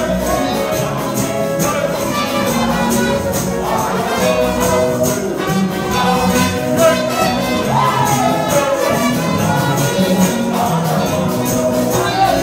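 Live gospel praise music: a man sings into a microphone over instruments with a steady, crisp percussion beat. His voice swoops up and down about eight seconds in.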